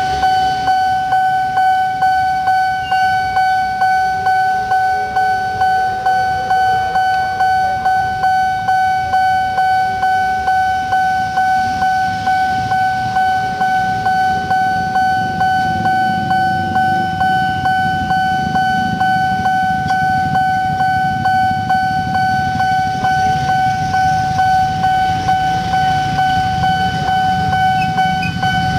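Railroad level-crossing warning bell ringing steadily: a single ringing tone struck over and over, just under twice a second, signalling an approaching train. Underneath it, traffic engines run at idle, a low rumble that grows louder in the second half.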